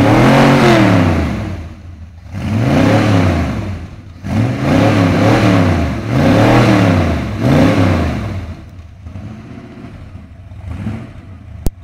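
Classic Ford Mustang's engine revved in about six blips, each rising and falling in pitch, then dropping back to idle for the last few seconds with one small blip near the end.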